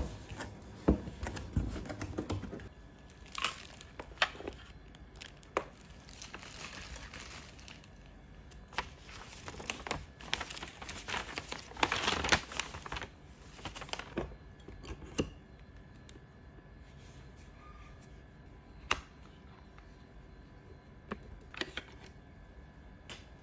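Packaging handled during a monitor unboxing: plastic wrap and paper crinkling and rustling, with scattered clicks and knocks of parts set down. The rustling is busiest about halfway through, then thins to occasional clicks.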